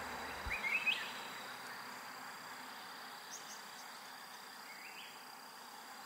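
Evening forest ambience: a steady high-pitched insect drone with a soft background hiss, broken by a short rising chirp about a second in and another near the end.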